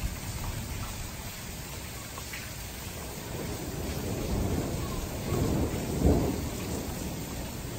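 Thunder rumbling over a steady hiss of rain, swelling about halfway through to its loudest and then fading.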